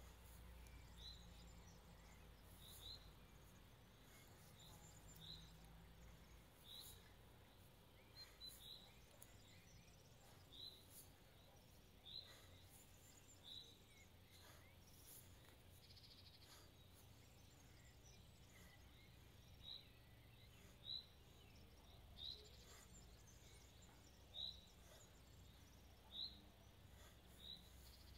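Faint outdoor ambience: a small bird repeating a short, high chirp every second or two over a low, steady rumble.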